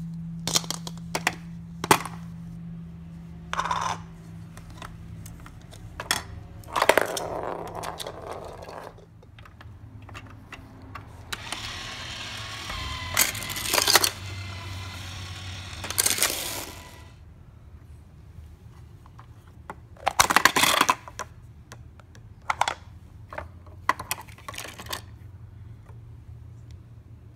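Hard plastic clicks, taps and knocks from a plastic surprise egg and a plastic toy train play set being handled, with several stretches of rustling in between.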